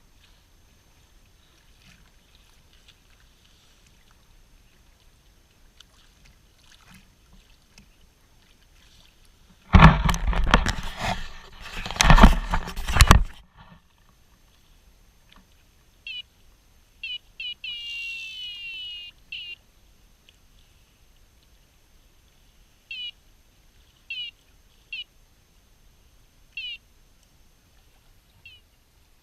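A loud noisy burst of about three seconds near the middle, then a bird calling in short chirps with falling pitch, once in a quick run of several notes, repeated at intervals.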